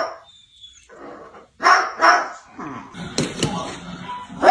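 A parrot imitating a dog's bark: two loud barks about a second and a half in, followed by quieter yapping sounds.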